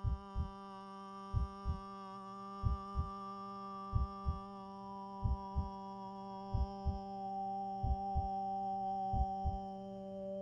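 Slow heartbeat, a double thump about every 1.3 seconds, under a sustained drone with many steady overtones that swells slightly.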